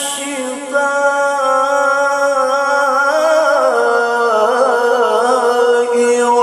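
A male qari's melodic Quran recitation over a microphone: long held notes with wavering ornaments, the voice stepping down in pitch partway through.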